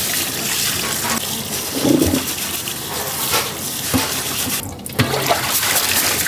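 Tap water pouring onto rice in a stainless-steel colander in a steel sink while gloved hands scrub and stir the grains to wash them, a steady splashing hiss. A few knocks come about 2, 4 and 5 seconds in.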